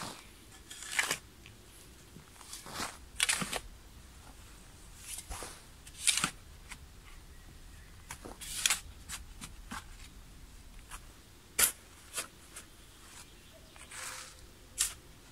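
A spade cutting and scraping into sandy soil and spadefuls of earth being thrown out of a pit, in short, irregular strokes every second or two.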